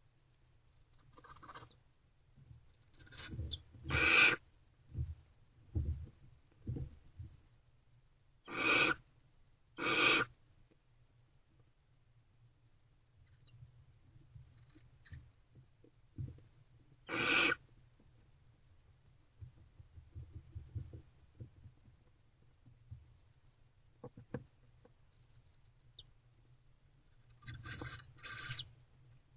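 Barn owls in a nest box giving about eight short, harsh hissing screeches at irregular intervals, some in quick pairs, the loudest about four and ten seconds in. Softer scratches and knocks come in between from the owls shuffling on the box floor.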